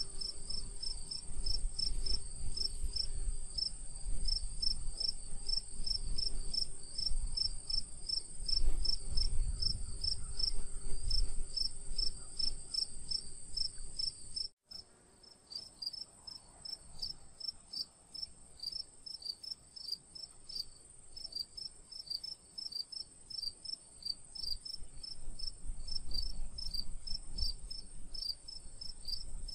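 Insects chirping: a steady high-pitched buzz under rapid, regular chirps, several a second, with a short break about halfway through. A low rumble sits under the first half.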